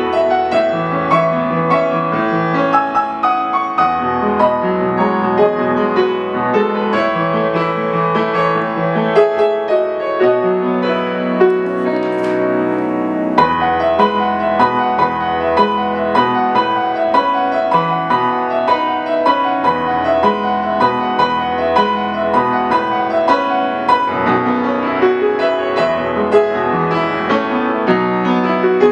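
Solo piano playing a continuous flowing line of notes over held low chords, with notes ringing on into one another.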